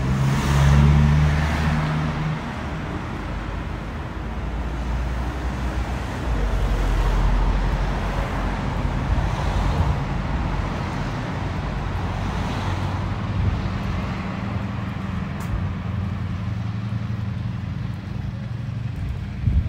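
City street traffic: a city bus's engine passes loudly in the first two seconds, then a steady hum of road traffic.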